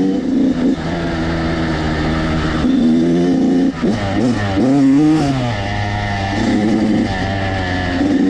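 Dirt bike engine running on a trail ride, held steady, then dropping off and revving back up about halfway through as the throttle is worked.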